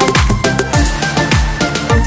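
Electronic background music with a fast beat: deep bass kicks that fall in pitch about three times a second, with sharp percussion hits over them.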